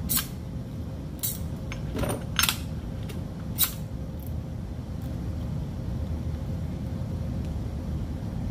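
A few sharp clicks and light knocks from handling an Avet LX Raptor fishing reel, over a steady low hum; the clicks stop a little under four seconds in.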